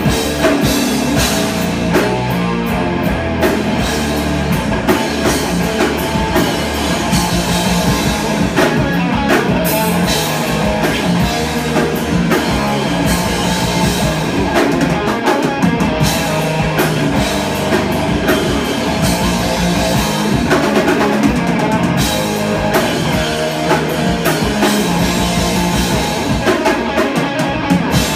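Live rock band playing: electric guitar, bass guitar and drum kit together, loud and steady, with regular drum and cymbal hits.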